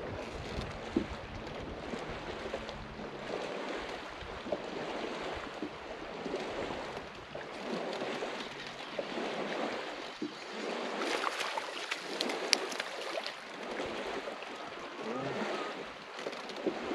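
Small waves lapping against the hull of a fishing boat, swelling and fading every second or two, with a few light knocks.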